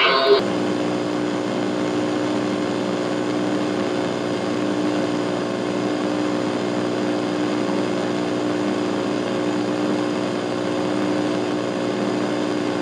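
Steady hum of a multirotor camera drone's motors and propellers: several even tones over a hiss, unchanging in pitch and level. It cuts in abruptly as music stops just after the start.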